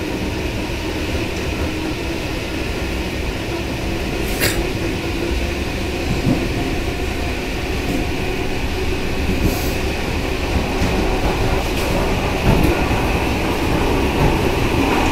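ET2M electric train heard from inside the door vestibule while running at speed: a steady rumble of wheels on rail with a few sharp clicks, growing a little louder near the end.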